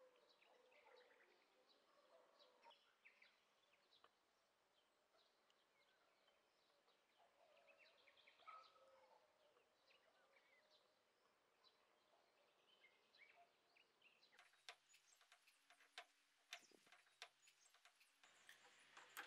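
Near silence: faint background with small bird chirps. From about three-quarters of the way in, a run of light sharp clicks as a spanner tightens the nut on the wheelbarrow wheel's axle.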